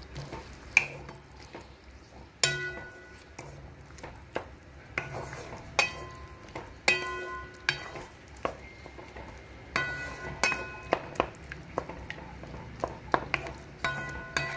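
A wooden spatula stirring chopped tomatoes, onions and cashews in water in a metal pot, knocking against the pot about once a second at irregular intervals; each knock leaves the pot ringing briefly.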